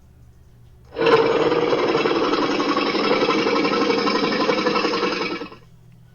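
Southern mammoth sound effect: a long, rough, pulsing growl that starts about a second in, runs for about four and a half seconds, and fades out quickly near the end.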